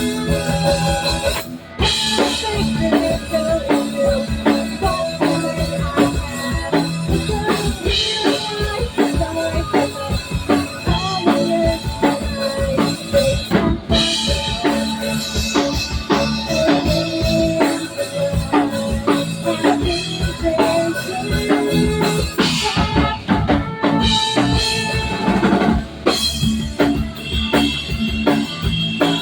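Music with a drum kit playing a steady beat under pitched instruments, with a brief break about a second and a half in.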